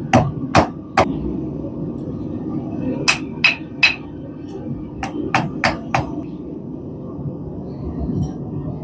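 Blacksmith's hammer striking hot steel on an anvil while forging a small hook. About ten blows come in three quick runs: three in the first second, three more around three seconds in and four around five seconds in, some with a short ring. The last few seconds hold only a steady low background rumble.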